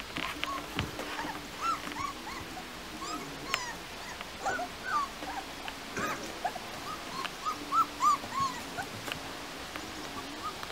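Beauceron puppies whimpering and yipping: many short, high whines that rise and fall, one after another.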